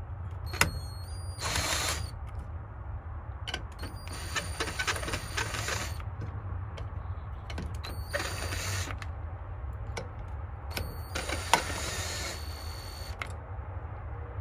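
Hand tools working a homemade valve spring compressor on a cylinder head: four separate bursts of mechanical rattling, each a second or two long with a thin high whine, and scattered clicks of metal on metal in between.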